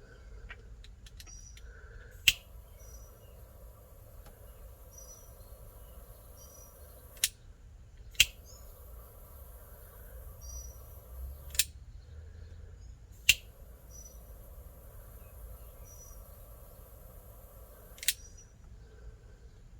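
Faint small-bird chirps repeating over a low background hum, cut through by six sharp clicks spread across the stretch.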